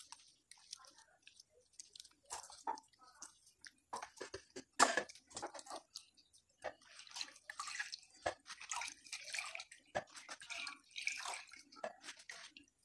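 Liquid dripping and trickling into a bowl, with wet squelches, as a soaked mass of grated pulp is squeezed and pressed by hand in a plastic strainer. The dripping and splashing grow busier about halfway through.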